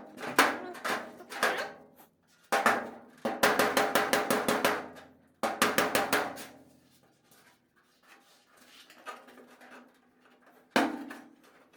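Hammer-and-dolly work on the steel hood of a 1969 GMC C20: runs of quick hammer blows, about five a second, with the sheet metal ringing, as a dent is beaten out. The blows stop a little past halfway, and one more strike lands near the end.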